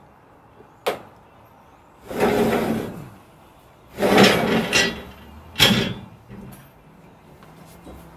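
Metal ladder being pulled down off a van's roof rack: a click, two long scraping slides of metal on the rack, then a sharp clank a little after halfway as it comes down, followed by a few lighter knocks.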